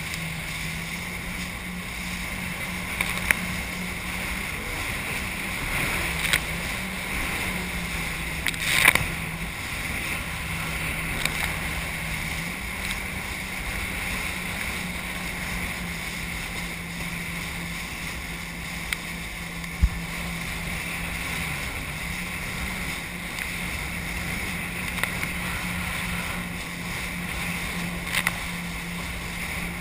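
Jet ski engine running under way, its hum stepping up and down in pitch a few times with the throttle, over a steady rush of wind and spray. A few sharp knocks stand out, the loudest about nine seconds in.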